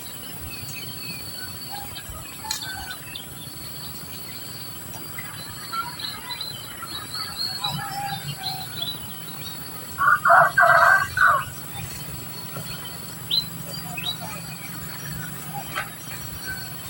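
Society finches chirping and twittering in short, scattered notes, with a louder run of four quick calls about ten seconds in.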